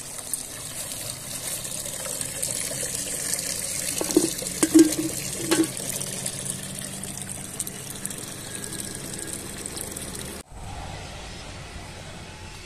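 Water running steadily, with a few short pitched sounds between about four and six seconds in; the water sound stops abruptly about ten seconds in.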